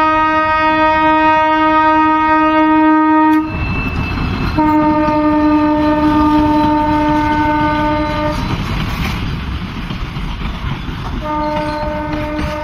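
A WDG4 diesel locomotive's horn sounds long, steady blasts: one breaks off about three and a half seconds in, another runs from about four and a half to eight seconds, and a third starts near the end. Between the blasts comes the rumble and clatter of the locomotive and container wagons running past.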